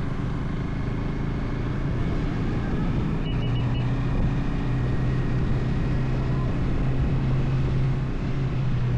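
Bajaj Dominar 400's single-cylinder engine running steadily under way, with road and wind noise; its hum gets stronger about three seconds in. A quick run of four short high beeps comes at the same moment.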